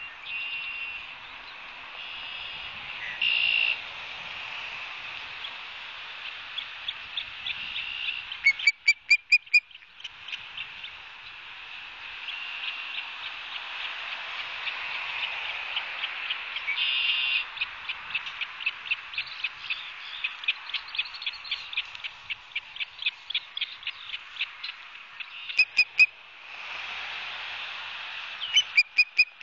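Osprey calling: short, sharp, high whistled notes in quick runs of five or six, loudest about nine seconds in, again near 26 seconds and at the end. Between the runs there are strings of quicker, fainter chirps, all over a steady high hiss.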